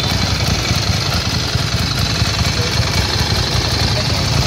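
Ducati Monster 795's air-cooled L-twin engine idling steadily, a fast, even low pulsing from the exhaust.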